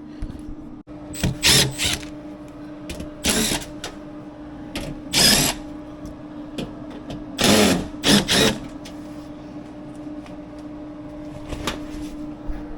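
Several short scraping and rustling bursts of hand work on low-voltage wiring and connections, over a steady hum.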